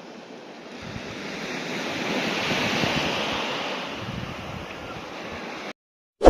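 Sea waves washing onto the shore, one swell of surf building and easing off, then cutting off suddenly near the end.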